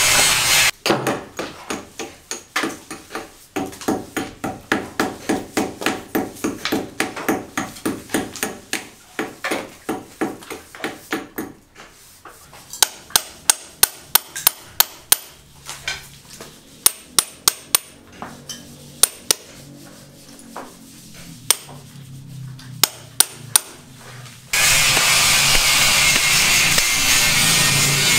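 Hammer blows at a building site: a steady run of strikes at about three a second for some ten seconds, then sharper, louder single strikes at uneven intervals. A steady scraping noise opens briefly and returns about four seconds before the end.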